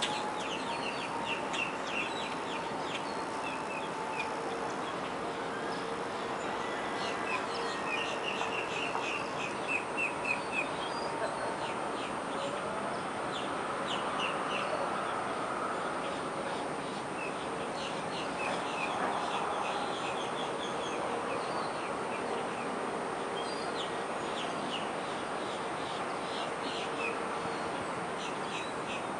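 Outdoor morning ambience: birds chirping in quick runs of short, high notes over a steady background hum.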